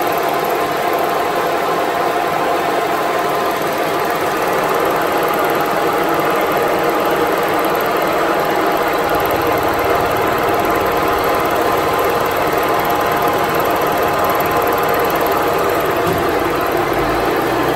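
Vertical milling machine running steadily as its face cutter skims the gasket face of a Peugeot 206 cylinder head, a continuous machining whine with several steady tones. The head is warped from overheating, so on this pass the cutter is still not touching the edges of the surface.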